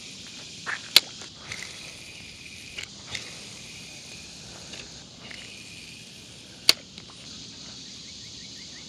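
Steady drone of insects in summer vegetation, with two sharp clicks from a spinning reel being worked for a cast, about a second in and again near seven seconds.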